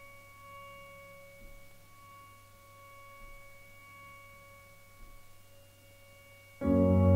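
Electronic music: a quiet, steady drone of held bell-like tones. About six and a half seconds in, a much louder sustained chord with deep bass comes in.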